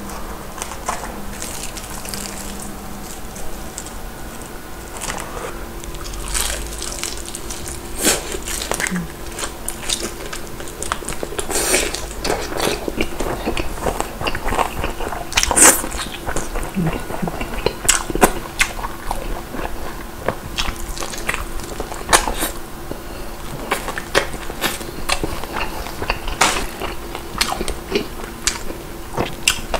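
Close-up crunching bites and chewing of crispy Korean old-style whole fried chicken (yennal tongdak), with many sharp, irregular crunches.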